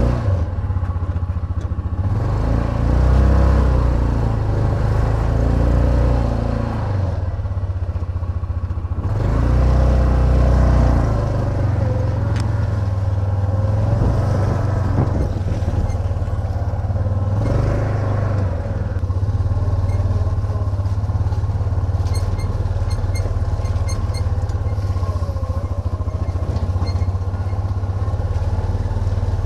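Side-by-side UTV engine running under load while driving over trail, its pitch rising and falling as the throttle changes.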